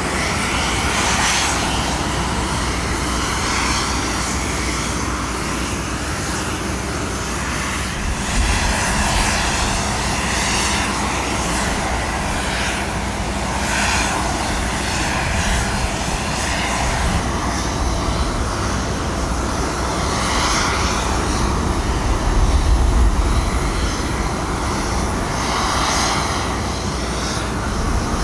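Steady jet aircraft noise, a continuous roar with low rumbling swells twice along the way.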